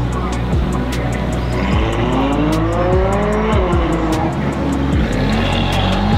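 A supercar engine revving hard under acceleration. Its pitch climbs, drops back around the middle and climbs again near the end, over background music with a steady beat.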